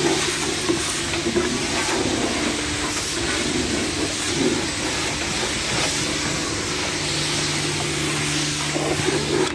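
High-pressure water jet from a pressure washer lance blasting against a van's bodywork and wheel arch: a steady loud hiss of spray with a low hum underneath. The spray cuts off suddenly near the end.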